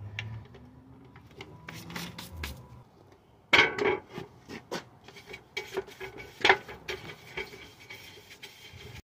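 Stiff-bristled hand brush scrubbing across a table top in quick rasping strokes, with scattered knocks and scrapes; the loudest strokes come about three and a half seconds in and again near six and a half seconds.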